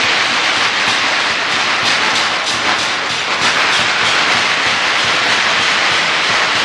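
A long string of firecrackers going off, a rapid and unbroken crackle of small bangs.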